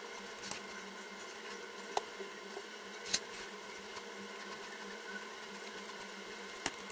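Sped-up scratching of a drawing tool on paper, sped up threefold: a steady buzzy scratching over a constant hum, with a few sharp clicks.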